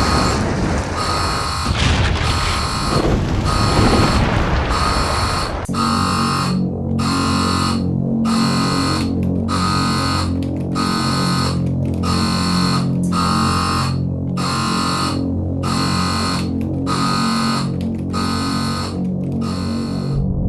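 Electronic alarm beeping over and over, a little faster than once a second: the launch alarm of a Soviet missile command post sounding after the launch button has been pressed. A loud rough rumbling noise runs under it for the first six seconds, then gives way to a low steady drone.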